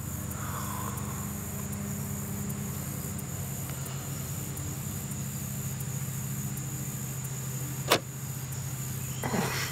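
Steady engine-like hum of a small motor running evenly, with one sharp click near the end.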